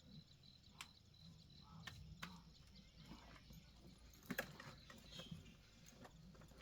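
Near silence: a few faint clicks and knocks, the loudest about four seconds in, over a faint high chirp repeating about three times a second.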